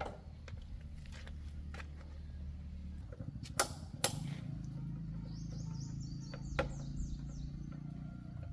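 A steady low mechanical hum, with two sharp knocks about half a second apart near the middle and a quick run of about ten short, high, falling chirps a little after them.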